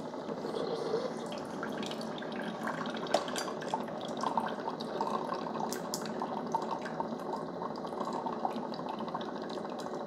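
Ninja CFP300 DualBrew coffee maker brewing a K-cup: hot coffee running from the brew head into a glass mug in a steady stream, with small splashing drips.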